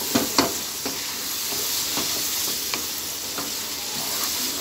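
Chicken, tomatoes and onions sizzling in oil in a non-stick karahi while a wooden spoon stirs them, with sharp knocks and scrapes of the spoon against the pan every second or so, two louder ones right at the start.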